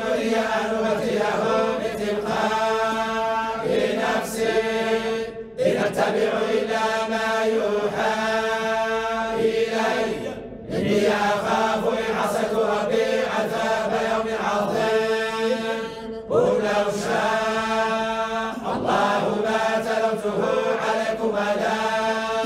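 A group of men reciting the Quran in unison, in the Moroccan collective style and the Warsh reading: one blended chant held on long, steady notes. It breaks off briefly for breath three times, about every five to six seconds.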